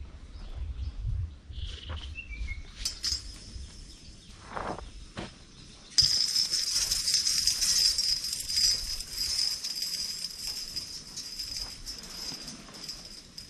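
A steady, high-pitched insect buzz starts suddenly about six seconds in and fades near the end, over a few bird chirps and a low rumble in the first half.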